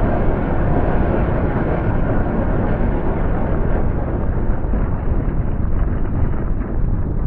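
A composed soundscape evoking a volcanic eruption: a loud, dense, continuous rumble with no distinct blasts, growing gradually duller over the first few seconds.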